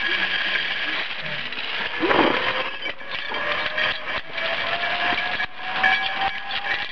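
Metal clinks and knocks of a zip-line pulley trolley and its clips being handled on a steel cable, with a faint whine that slowly rises in pitch from about two seconds in.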